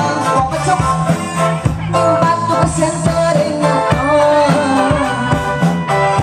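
Loud live reog dangdut music: a keyboard melody of held notes over a steady drum beat.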